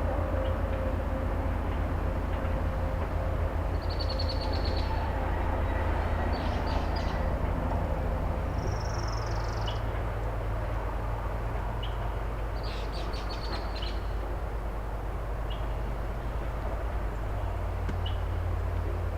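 Excavator's diesel engine running steadily down the road, a low drone that shifts in pitch a couple of times. Several short, high bird calls over it.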